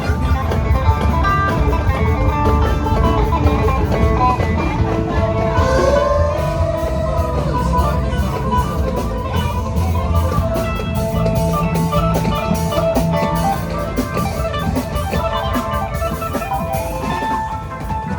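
Loud music with guitar over a drum kit and bass beat.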